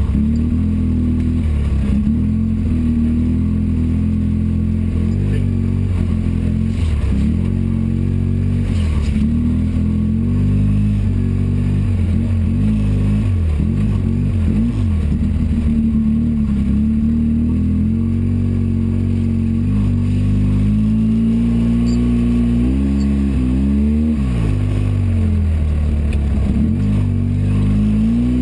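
Polaris RZR 800 side-by-side's twin-cylinder engine running as the machine is driven off-road, heard from inside the cab, its pitch dipping and rising again and again as the throttle is worked. Toward the end it revs up and down several times in quick succession.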